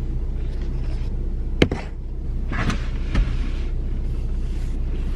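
Steady low hum of a car engine idling, heard inside the cabin, with two sharp clicks about a second and a half apart.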